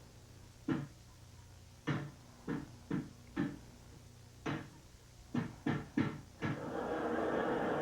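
About ten short, sharp knocks or bangs at uneven intervals, several coming in quick runs of two or three, followed about six and a half seconds in by a steady, louder din.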